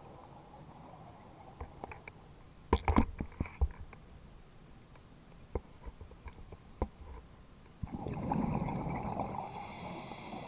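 Underwater sound of a scuba diver: a burst of sharp clicks and knocks about three seconds in, with single clicks later, as gear bumps the camera housing, then a gurgling rush of exhaled bubbles from the regulator starting about eight seconds in.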